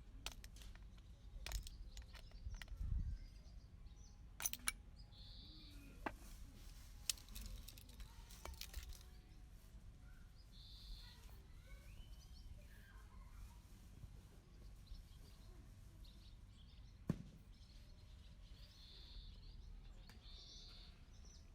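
Faint outdoor ambience: small birds chirping now and then, with scattered sharp clicks and light knocks, most of them in the first half.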